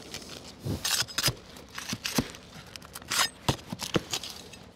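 Hand tools working asphalt roof shingles: a knife cutting the shingles and a flat pry bar prying them up to pull the roofing nails. The sound is a string of sharp, irregular scrapes and clicks.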